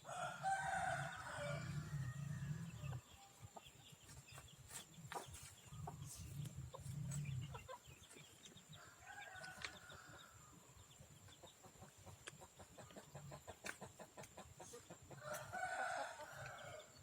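Free-range chickens clucking, with a rooster crowing three times: near the start, about nine seconds in, and near the end. Scattered sharp clicks and quick ticking sounds between the crows.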